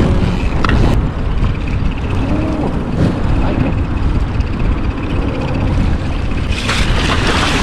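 Fishing boat's motor running with a steady low rumble under wind buffeting the microphone, and a louder rush of noise near the end.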